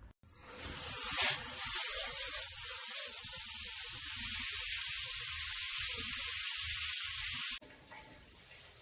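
High-pressure handheld shower head spraying water with a steady hiss. It surges loudest about a second in, then cuts off suddenly near the end.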